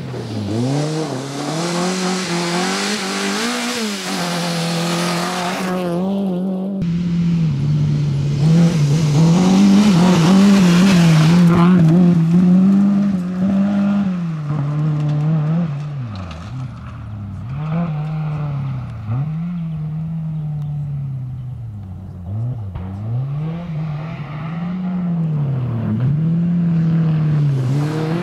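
Seat Ibiza rally car's engine revving hard, the note climbing and dropping again and again through gear changes and lifts. At times there is loud hiss from the tyres on loose gravel.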